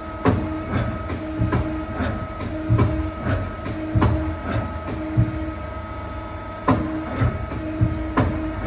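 Mazak SQT CNC lathe running through its motions: a steady machine hum, a low tone that starts and stops in short stretches, and repeated sharp clunks and clicks, often two or three a second, with a gap of about a second just past the middle.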